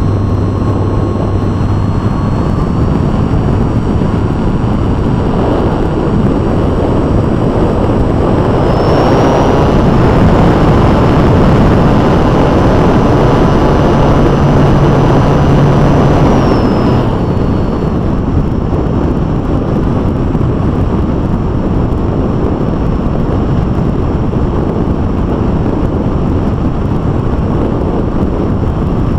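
ValueHobby E450 brushless electric motor spinning an 11x5.5 propeller on a foam RC airplane in flight, heard from a camera on the airframe: a loud steady rush of prop wash and wind with a thin high motor whine. The whine steps up in pitch and the rush grows louder about nine seconds in, then drop back around seventeen seconds in, as the throttle is raised and eased.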